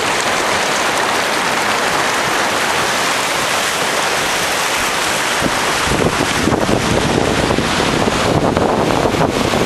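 Ocean surf washing and breaking over coastal rocks, a steady loud rush, with wind buffeting the microphone.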